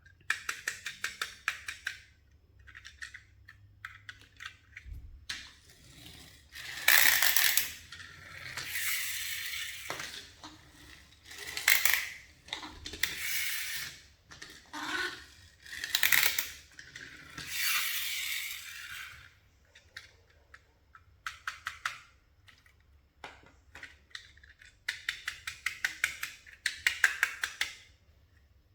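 Toys being handled by hand: quick runs of small hard plastic clicks and clatters, broken by several stretches of rustling or scraping lasting a second or two each.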